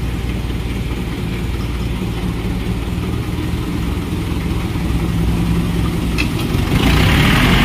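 Mahindra 475 DI tractor's direct-injection diesel engine idling steadily, getting louder near the end as it picks up.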